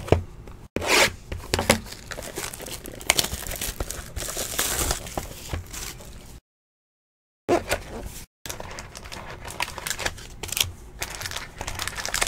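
Plastic shrink-wrap being torn off a sealed trading-card box and crumpled, a crackling, tearing rustle full of sharp clicks, with the cardboard box then handled and opened. The sound drops out completely for about a second just past halfway, and briefly twice more.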